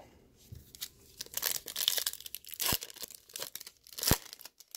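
A trading-card pack's foil wrapper being torn open and crinkled in the hands, with a sharp click about four seconds in.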